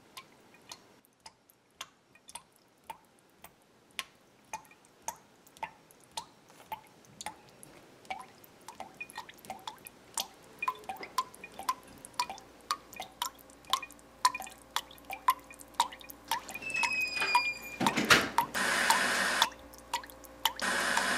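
Water dripping, the drops coming faster and faster, each landing with a small ping. Near the end a short rising whistle sounds, then two loud bursts of hissing noise.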